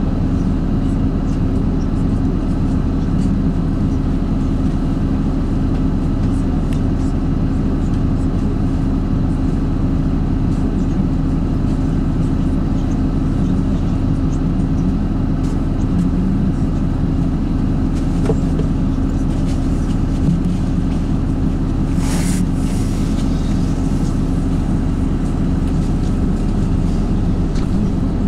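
LiAZ-5292 city bus running, heard from inside the cabin: a steady engine drone and running noise. A short hiss cuts through about two-thirds of the way in.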